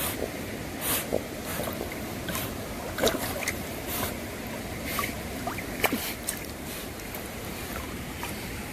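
Flowing stream water rushing steadily, with scattered small splashes and clicks, the sharpest about three and six seconds in.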